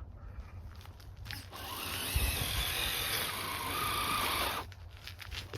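Electric motor and gears of an RC rock-crawler truck whining as it drives through snow under a steady hiss, starting about one and a half seconds in and cutting off near the end.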